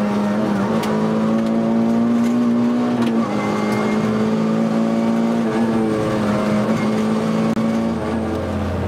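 Interior sound of an Opel Corsa rally car's engine running hard at steady high revs, with two brief breaks in the note about three and five and a half seconds in.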